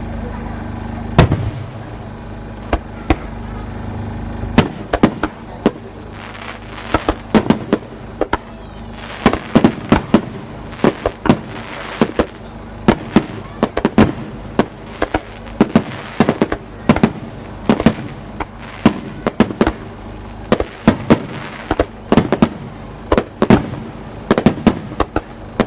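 Aerial fireworks bursting at a display: one sharp bang about a second in, then from about four and a half seconds a rapid barrage of many bangs, several a second.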